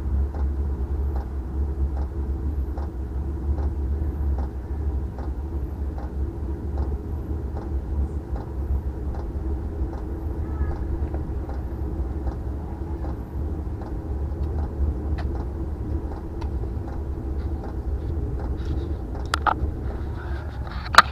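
Diesel air heater running during a cold start: a steady low rumble from its exhaust and combustion fan, with the fuel dosing pump ticking evenly a little more than once a second. A sharper knock comes near the end.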